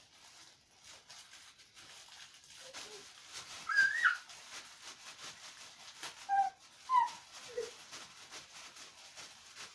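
A baby squealing and babbling in a few short, high, wavering cries, the loudest about four seconds in, over faint rustling of packaging being handled.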